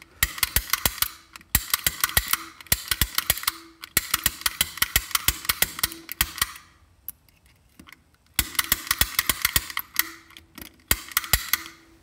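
Manual lock pick gun snapping rapidly as its trigger is squeezed over and over, the needle striking the pins inside a Master Lock M15 padlock to pick it. The snaps come several a second in long runs, with a pause of about two seconds partway through.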